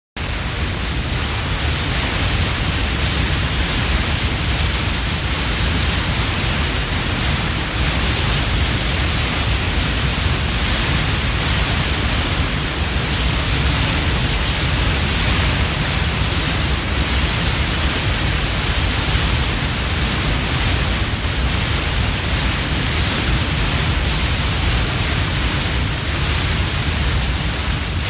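Building-collapse sound effect: a loud, steady roar of dense noise, heaviest in the low end, with no separate crashes standing out.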